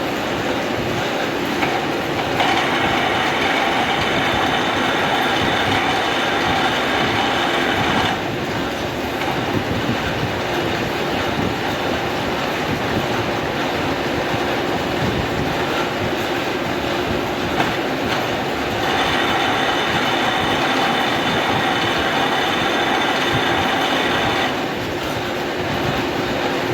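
Metal lathe running steadily. Twice, for about five and a half seconds each, a high-pitched whine rises over it as the tool cuts into the mild steel workpiece, then stops abruptly.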